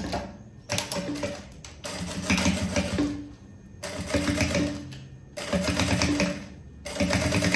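Sewing machine stitching in short runs of about a second each, stopping and starting several times, as a seam is topstitched.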